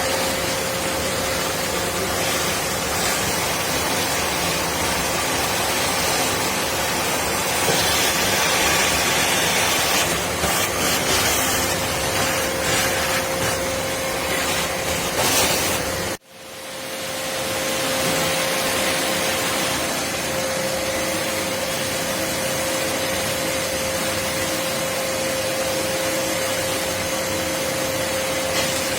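Black+Decker BXVC30XTDE 1600 W wet/dry vacuum running with a steady rushing noise and a constant whine. About sixteen seconds in, the sound cuts out abruptly and comes back within a second or two.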